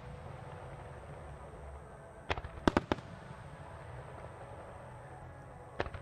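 Aerial firework shells going off in the distance: a quick cluster of about five sharp bangs a little over two seconds in, and the start of another cluster right at the end, over steady background noise.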